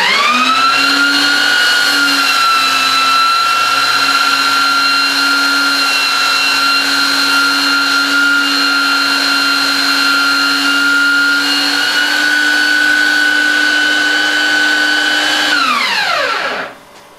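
Belt sander, clamped upside down, starting up with a rising whine and then running steadily under load while a wooden dowel is ground into a tapered tree trunk against the belt. Near the end it is switched off and its whine falls away as it spins down.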